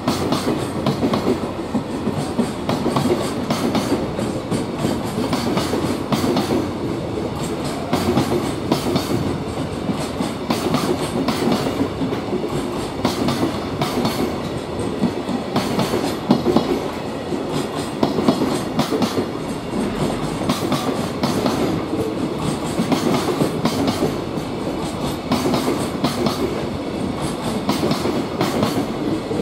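Freight train of container flatcars rolling past close by: a steady rumble of wheels on rail with a continuous clickety-clack of wheelsets over rail joints.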